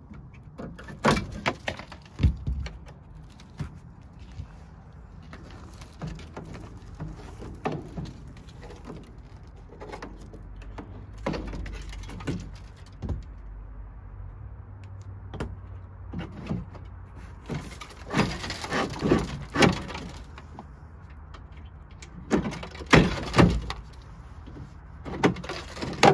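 Scattered metal clunks, knocks and scrapes from the stuck tailgate of a 1957 Plymouth station wagon being worked by hand, busier about two-thirds of the way through and again near the end.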